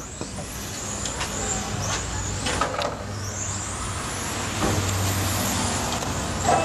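Radio-controlled touring cars racing, their motors giving high-pitched whines that rise and fall as the cars accelerate and brake through the corners.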